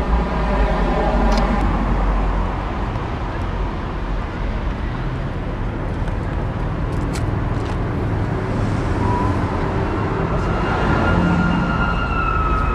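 Steady rumble of road traffic with a pitched engine-like drone in the first second or so. From about ten seconds in, a long high whistle tone starts and slowly falls in pitch.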